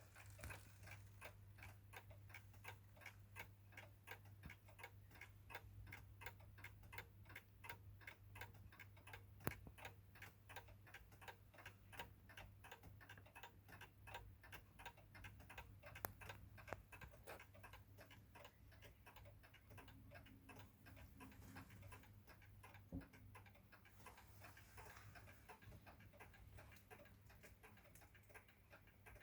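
Junghans round clock's movement ticking steadily and faintly, running well again after maintenance, with a low steady hum underneath.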